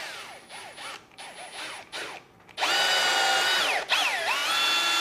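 Cordless drill boring into driftwood: a few short trigger bursts with the motor whine rising and falling, then a steady high-speed run that sags briefly under load about four seconds in and picks back up to speed.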